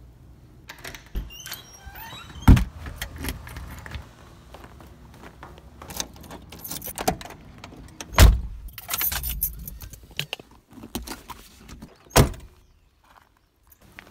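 Keys jangling and handling rattles, and a car door being opened and shut, with three heavy door thumps spread through.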